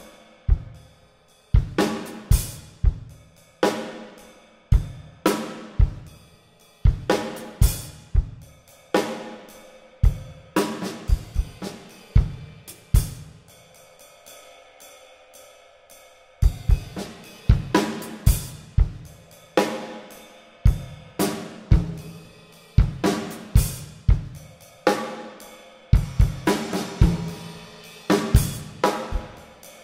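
Solo drum kit played with sticks: snare, tom, bass drum and cymbal strokes in short phrases broken by pauses in which the cymbals ring on. The playing thins to ringing for a couple of seconds around the middle, then comes back in denser phrases.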